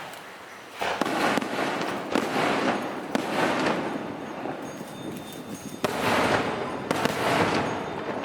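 Fireworks going off in several bursts, each trailing off over a second or two: one about a second in, then two more close together near the end.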